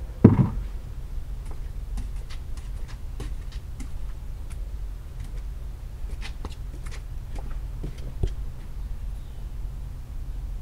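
Sandalled footsteps on a wet wooden deck, as scattered light slaps and clicks, over a steady low rumble. A short, loud thump comes just after the start.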